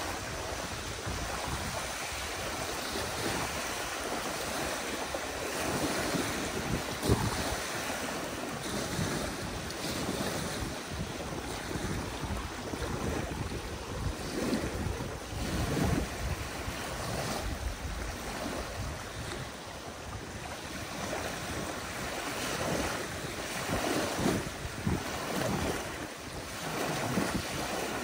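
Small wind-driven waves lapping and washing onto a sandy lake shore, surging one after another, with gusty wind rumbling on the microphone.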